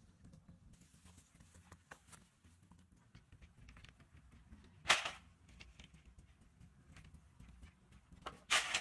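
Bundle of bamboo poles clattering: a sharp knock about five seconds in and a longer clatter near the end, with faint rustling and ticking in between.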